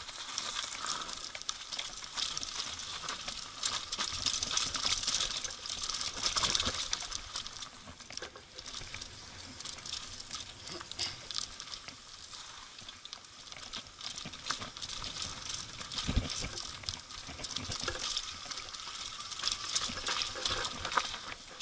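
Mountain bike riding fast down a loose dirt and gravel trail: tyres crunching over stones, with a constant clatter and rattle of the bike and a heavier knock about sixteen seconds in.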